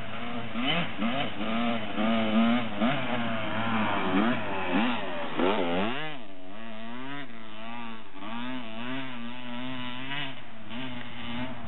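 Dirt bike engine revving up and down as it rides over a sandy track, rising and falling in pitch through the turns. About six seconds in it passes close, then carries on more evenly as it rides away.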